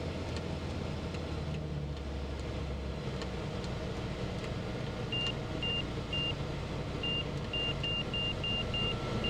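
Van's RV-12 cabin in the landing flare: the engine runs steadily at low power. About halfway through, a high warning beep joins it, pulsing faster and faster until it is nearly a steady tone. This is the stall/angle-of-attack warning as the wing nears the stall just before touchdown.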